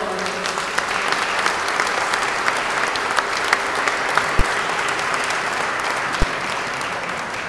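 Audience applauding, a steady patter of many hands clapping that swells at the start and tails off at the end, with two short low thumps, one about halfway through and one near the end.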